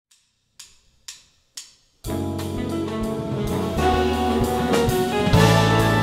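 Three sharp ticks about half a second apart, then a jazz big band enters together at about two seconds: saxophones, trombones and trumpets over drum kit. The band gets louder again about five seconds in.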